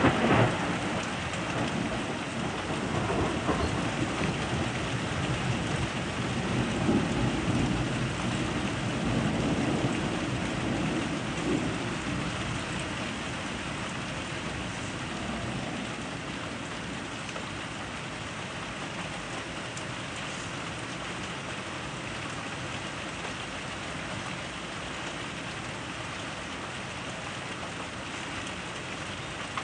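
Thunder rumbling through the first dozen seconds or so, rising and falling before it fades away, over steady rain falling.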